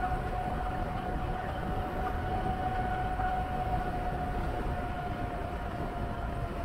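Wind rushing over the microphone and tyres running on asphalt as a loaded touring bicycle rolls fast downhill, with a steady high whine throughout that drops slightly in pitch near the end.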